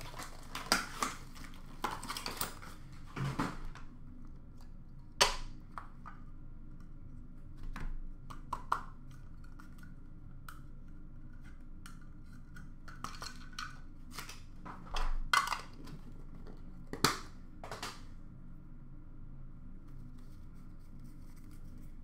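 Scattered clicks, taps and rustles of trading-card product being unpacked and handled, with hard plastic card cases being set down.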